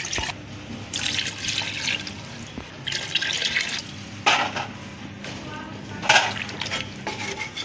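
Water poured in several goes from a steel glass into a pot of chicken and potato masala, splashing into the liquid.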